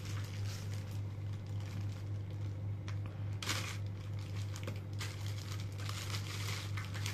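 Clear plastic bag crinkling as it is handled and opened around an action figure, in bursts, loudest about three and a half seconds in and again from about five seconds on, over a steady low hum.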